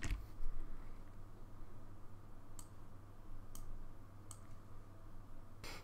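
Sparse clicks from a computer mouse and keyboard, a handful of single clicks spread over a few seconds, over a faint steady low hum.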